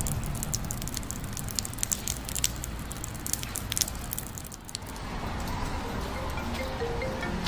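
Rain falling and dripping onto a brick wall and pavement: a steady hiss with many sharp drip clicks. About five seconds in the rain fades and soft, short music notes begin.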